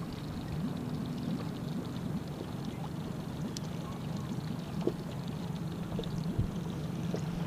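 Water splashing and lapping against a small boat's hull, with a faint steady low hum underneath and a few light knocks.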